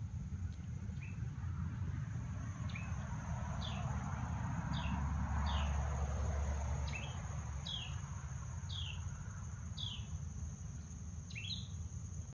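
A bird calling outside, a short downward-sliding chirp repeated about once a second, over a steady high-pitched insect drone. A low rumble swells in the middle.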